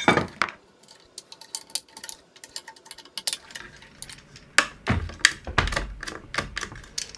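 Irregular light metallic clicks and taps of metal machine parts and tools being handled, with a few heavier knocks a little past the middle.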